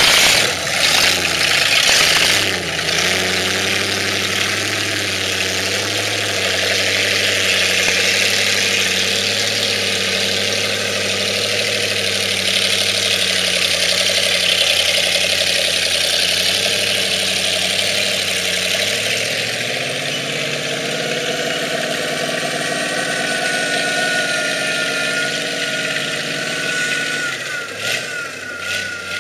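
Mud buggy's engine running steadily at low speed as the buggy drives, its note shifting about two-thirds of the way through.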